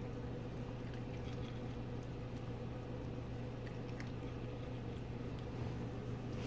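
Yorkshire terrier puppy chewing hand-fed puppy food, a few faint crunches and clicks from its mouth over a steady low hum.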